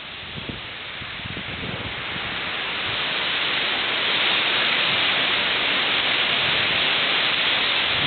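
Strong wind rushing, a steady hiss that swells over the first few seconds and then holds, with a few low buffets on the microphone near the start.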